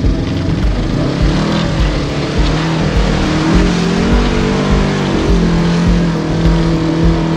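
Polaris RZR 1000 side-by-side's parallel-twin engine running under load as it crawls through muddy ruts, the revs rising a little about halfway through and then holding steady. Uneven low thumps run underneath.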